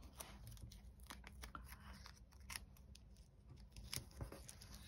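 Faint crackles and light ticks of a small paper sticker being handled, peeled and pressed down onto card.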